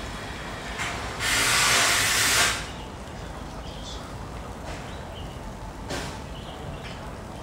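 A loud hiss lasting about a second and a half, starting about a second in, over a steady low background murmur.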